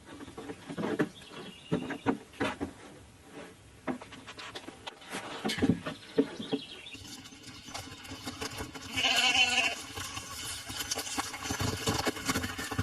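A goat bleating, loudest about nine seconds in, among scattered knocks and scuffles.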